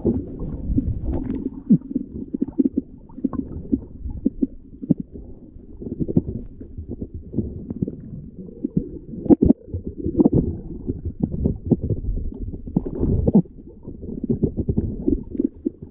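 Muffled underwater noise picked up by a submerged GoPro Hero 8: water moving against the camera, with many irregular low knocks and pops.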